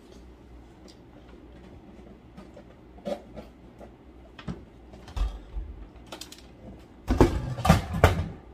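Soft wet chewing and small mouth clicks of someone eating juicy watermelon, then a loud run of knocks and bumps about seven seconds in as an electric fan beside the table is pushed about.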